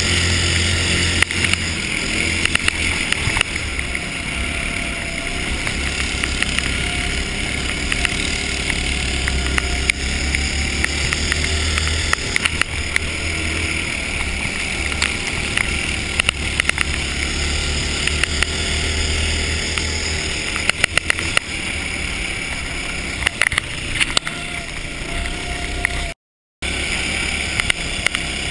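Ice go-kart engine running at speed, heard from on board as a steady low drone under a broad wash of wind noise, with scattered clicks and knocks throughout. The sound cuts out for a moment near the end.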